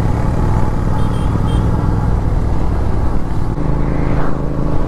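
Royal Enfield Continental GT 650's parallel-twin engine, fitted with a Red Rooster aftermarket exhaust, running steadily under way. About three and a half seconds in, its note changes and goes higher.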